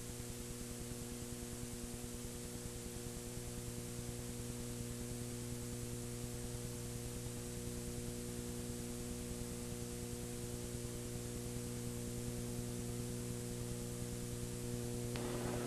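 Steady electrical mains hum with a layer of hiss, growing slightly louder toward the end; no race sounds stand out above it.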